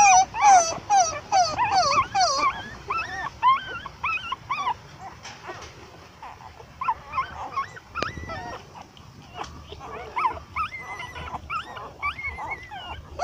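Newborn puppies squeaking and whimpering as they jostle to nurse from their mother: many short, high-pitched cries that rise and fall in pitch, thickest in the first few seconds and more scattered after.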